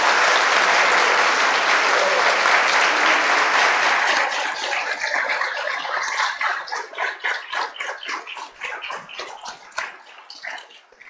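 A congregation applauding: dense clapping for the first few seconds, then thinning to scattered single claps that die away near the end.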